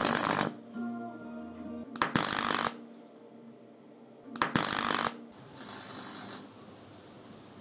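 Electric arc welder tacking steel tabs onto a steel-tube frame: short bursts of crackling arc, four in all, spaced about one and a half to two seconds apart, the last one fainter.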